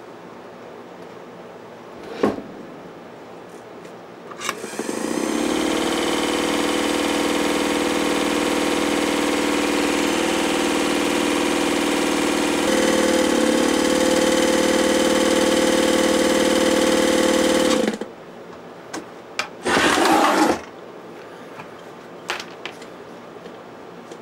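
Vintage Atlas sewing machine's electric motor running the machine steadily for about thirteen seconds, powered through its newly repaired foot control. The speed steps up a little about two-thirds of the way through, then the motor stops suddenly. A click comes before the run and a short rasping noise after it.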